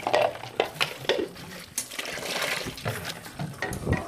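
Chicken, tomatoes and green chillies cooking in a karahi: wet sizzling with irregular clicks and knocks.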